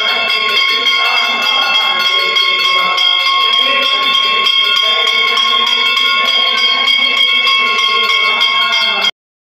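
Temple bells ringing continuously during the aarti: rapid repeated strikes over a steady ringing, with devotees' voices underneath. The sound cuts off abruptly near the end.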